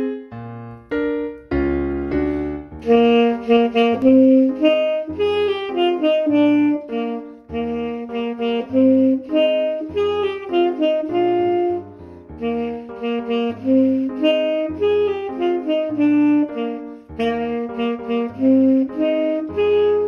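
Tenor saxophone playing a jazz-style melody over a piano accompaniment with a bass line. The saxophone comes in about three seconds in, after a few bars of piano alone.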